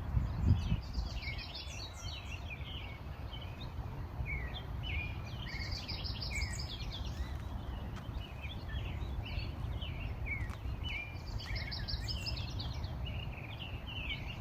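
Several songbirds chirping and singing, one rapid song phrase coming back about every five seconds, over a steady low rumble.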